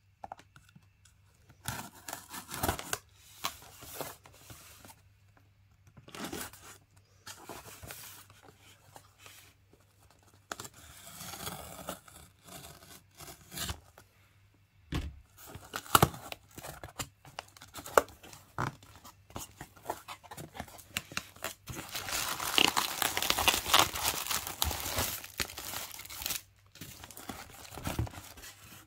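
A cardboard shipping box being opened by hand: packing tape and cardboard tearing, with cardboard crinkling and rustling as it is handled, and a few sharp clicks. The longest and loudest stretch of tearing comes about two-thirds of the way through.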